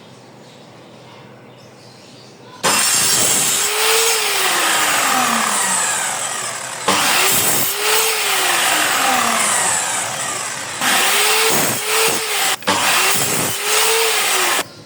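Electric power saw cutting wood in four runs: its motor whine rises as it spins up and then sinks away under the cut. The first two runs last about four seconds each, and the last two are shorter.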